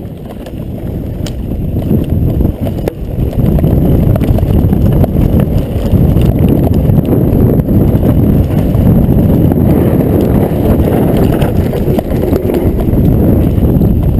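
Mountain bike being ridden over rough trail: a loud, dense low rumble of wind buffeting the microphone and the bike rattling, with a few sharp knocks, growing louder over the first few seconds.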